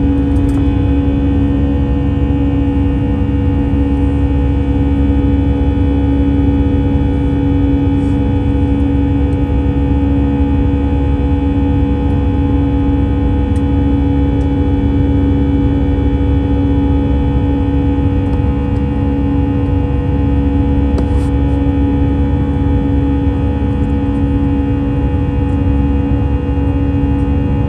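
Steady cabin roar of an Airbus A321-212 climbing through cloud after takeoff, from its CFM56 turbofan engines and the rushing air. Several constant hum tones run through it, and there are a few faint ticks.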